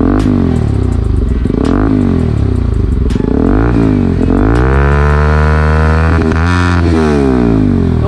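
Bajaj Pulsar NS200's single-cylinder engine, breathing through an aftermarket R9 racing exhaust, revved while standing. It gives three quick throttle blips, then a longer rev held high for a couple of seconds that drops back to idle near the end.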